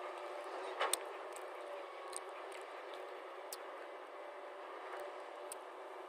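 Hyundai crawler excavator working: a steady engine and hydraulic hum with scattered light clicks, and a short louder burst of noise just under a second in while the bucket digs into the soil.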